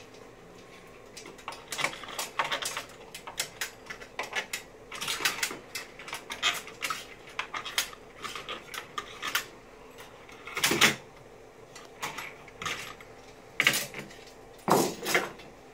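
Metal frame and plastic parts of a Honda Civic Hybrid battery pack clicking and clattering as they are fitted together by hand: a string of sharp knocks, with the loudest about eleven seconds in and twice more near the end.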